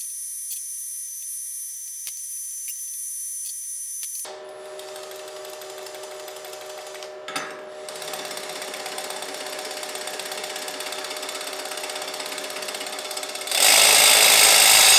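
Cordless drill turning the input shaft of a homemade jigsaw attachment, a welded steel box mechanism, with a steady whine from about four seconds in and one short knock midway. It gets much louder near the end. The first few seconds hold only a faint high hiss with occasional light ticks.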